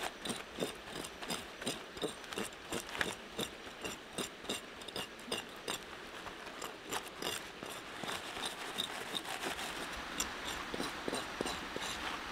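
Knife blade scraping along a small crocodile's scaly hide in quick repeated strokes, about two or three a second, rasping off the scales.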